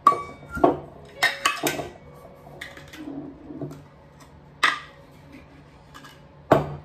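Sharp clinks and clacks of metal against glass: a metal lid coming off a glass storage jar and being set on the counter, and a metal measuring cup knocking inside the jar while scooping sugar. Several separate knocks, one with a brief metallic ring at the start and a loud clack near the end.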